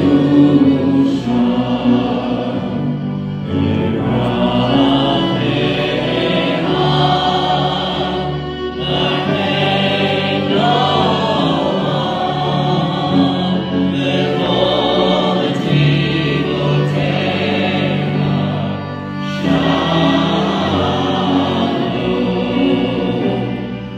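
Congregation singing a worship song together in phrases with short breaks between them, over steady low instrumental notes.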